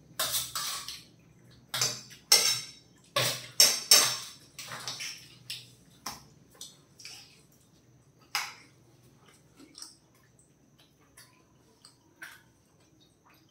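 Metal spoons clinking and scraping against plates while parotta is cut up and scooped, the strokes coming thick and fast for the first few seconds, then one more loud clink and only scattered light ticks.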